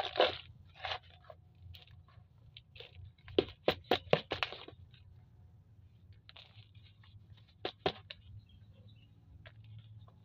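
Handfuls of crumbly potting soil being scooped, dropped and pressed into a small plastic plant pot by hand, crunching and scraping. A cluster of sharp crackles comes about three and a half to four and a half seconds in, and two more just before eight seconds.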